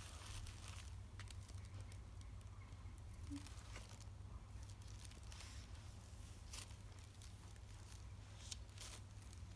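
Faint rustling and crinkling of tissue paper and paper leaflets as a Himalayan cat rolls and paws on them, with a few short crackles scattered through, over a low steady hum.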